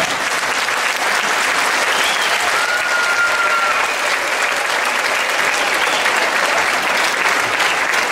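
Theatre audience applauding steadily after a musical number ends, with a short whistled note about three seconds in.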